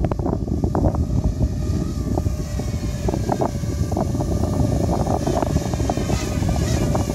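Wind buffeting the microphone in irregular gusts, with the steady hum of a Jumper 266 quadcopter's Emax 2204 motors and triblade propellers running under it.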